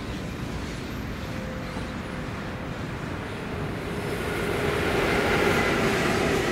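Bombardier TRAXX class 186 electric locomotive approaching on the line. It grows louder from about four seconds in, with steady whining tones over its running noise.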